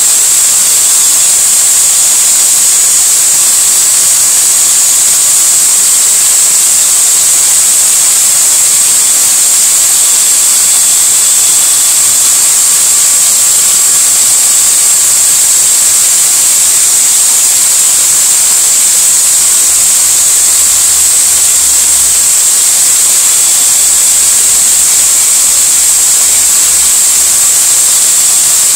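Electric drill clamped in a bench vise, running steadily at high speed and spinning a small-block V8 engine valve that is being cleaned of carbon: a loud, even hiss with a high whine.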